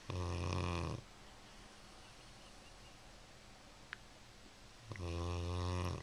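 A sleeping retriever dog snoring: two snores, each about a second long, about five seconds apart, with a faint click between them.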